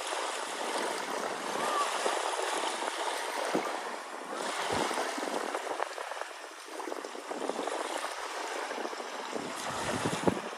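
Sea waves washing on a shore: a steady hiss of surf that swells and ebbs, dipping briefly about two-thirds of the way through.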